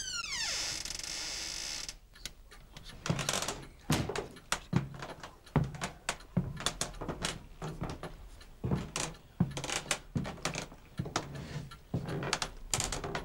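A hiss for about two seconds that cuts off suddenly, then slow, single footsteps of hard-soled shoes on a wooden floor, each step echoing briefly in a large bare hall.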